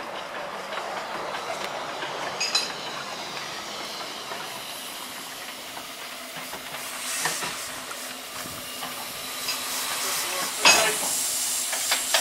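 Narrow-gauge Bagnall 2-4-0T steam tank locomotive standing with steam hissing, with a few sharp metallic clicks. About ten and a half seconds in, a sudden louder rush of steam starts and carries on.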